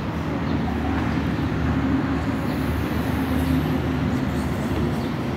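Steady low hum of an idling motor vehicle engine, holding an even pitch throughout.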